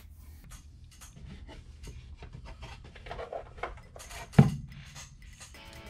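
Small handling noises: light rubbing, scraping and clicks of objects being moved on a work surface, with one sharp knock about four and a half seconds in. Music comes in near the end.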